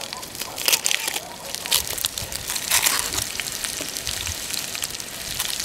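Dry, papery onion skin crinkling and crackling as an onion is peeled with a small knife, in irregular crisp crackles, the loudest about one and three seconds in.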